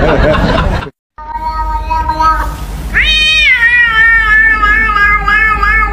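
A grey cat meowing: a short, quieter call, then about three seconds in a long, drawn-out meow that rises, falls and holds with a wavering pitch.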